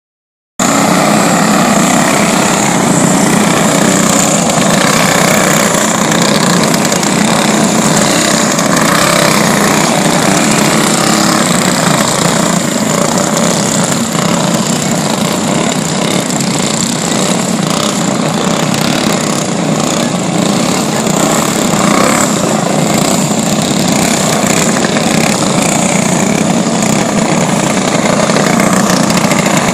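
Several racing kart engines running hard together around a dirt oval, a loud, steady buzzing drone, starting abruptly about half a second in.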